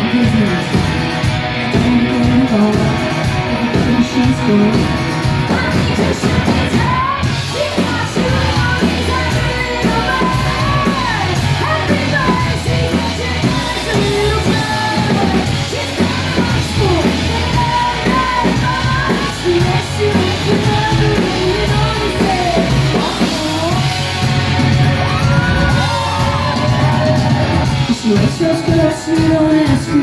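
Live rock band performing: a woman sings lead over acoustic guitar, electric guitars, bass and drums, heard from within the audience of a club hall.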